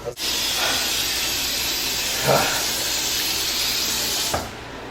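A steady hissing rush, like spraying or running water, that starts abruptly and cuts off suddenly after about four seconds, with a short louder burst about halfway through.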